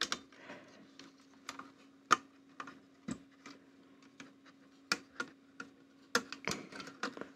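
Irregular small clicks and taps of fingers handling a camcorder's internal circuit board, its plastic connectors and its cables.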